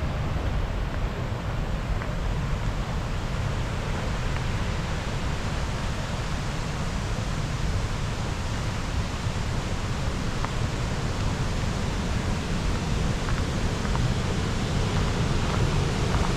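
Steady rushing of fast-flowing water, an even roar with a heavy low rumble underneath.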